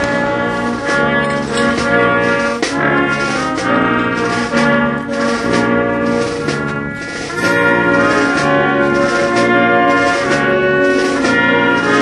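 Brass band playing a slow piece in held chords, the notes changing every second or so; it grows a little louder about seven seconds in.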